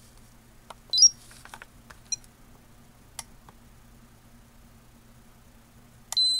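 Electronic beeps from a Peak Atlas ESR70 ESR and capacitance meter testing a capacitor. A short rising chirp comes about a second in, just after its test button is pressed, and a faint brief beep follows a second later. A high steady beep starts near the end, the meter's audible alert as the measurement finishes. A few light clicks of the button and test leads are also heard.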